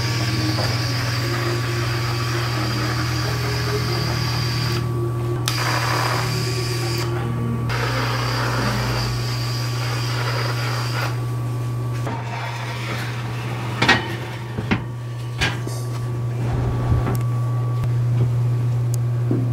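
Electrostatic powder coating gun spraying powder: a steady air hiss over a low hum. From about twelve seconds in the spraying stops, and a few knocks and clicks of handling follow.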